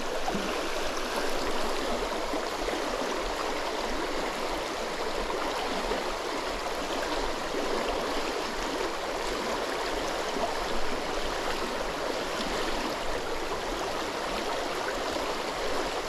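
Shallow, rocky creek running steadily over stones in a riffle, a continuous rushing and gurgling of water.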